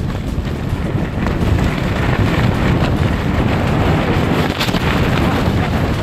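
Strong wind buffeting the microphone, with the fly sheet of a Coleman Touring Dome LX tent rustling as it is gathered up.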